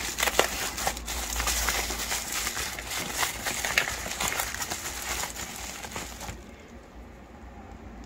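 Red plastic bubble-wrap bag and yellow padded envelope crinkling as they are handled to unwrap a small lens adapter. The crinkling is a dense crackle of small clicks and stops about six seconds in.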